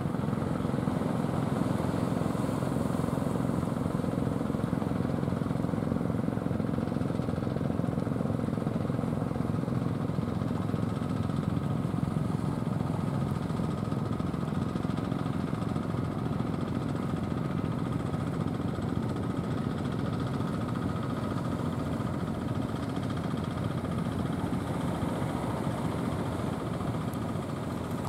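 Engine of a small outrigger fishing boat running steadily while the boat is under way, easing slightly quieter near the end.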